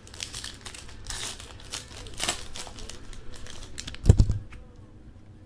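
A trading-card pack wrapper crinkling and tearing as it is opened by hand, then a single low thump about four seconds in as the cards are taken out.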